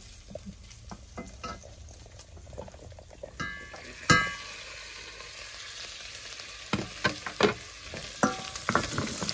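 Diced beef and butter sizzling in a stainless steel pan while a wooden spoon stirs and scrapes it, with light knocks against the pan. About four seconds in, a glass lid clinks against the pan with a short ring, and the sizzle is louder after it.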